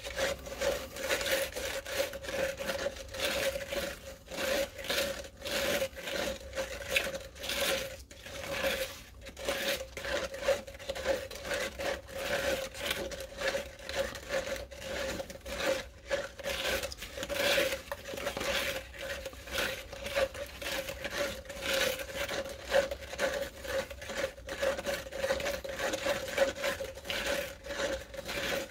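A stir stick scraping and rubbing around a plastic cup as wet Cement All is mixed, in quick repeated strokes about two or three a second, over a steady hum.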